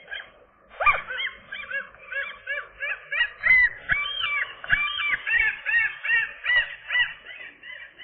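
Gulls calling: a loud, rapid series of repeated rise-and-fall calls, about four a second, starting about a second in.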